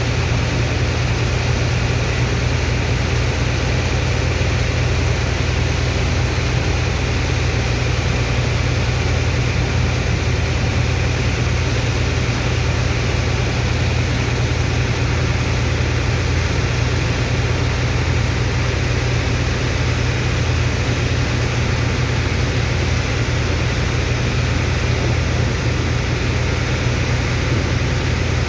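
Sand dredger's engine and water pump running steadily under load, a strong low hum under an even hiss that does not change.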